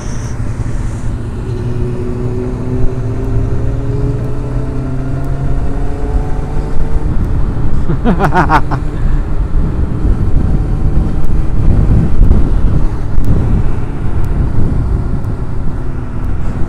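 Sport motorcycle ridden at speed, its engine note climbing slowly as it pulls through a gear under heavy wind rumble on the microphone. About eight seconds in there is a brief sharp swoop in engine pitch, after which the wind and road noise grow louder.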